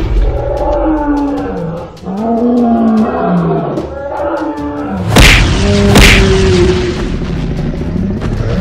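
Cartoon monster roaring and growling, the pitch sliding up and down, followed by two loud impacts about a second apart a little past the middle.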